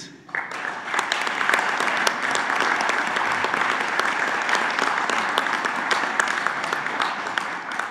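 Audience applauding: a dense patter of many hands clapping that starts a moment in, holds steady, and begins to die away near the end.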